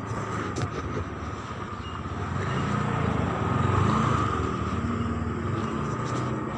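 Motor vehicle passing on the road: engine and road noise that swell to their loudest about four seconds in and then fade.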